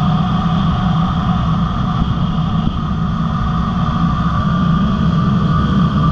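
Dirt bike engine running at a steady cruising speed, with no revving up or down.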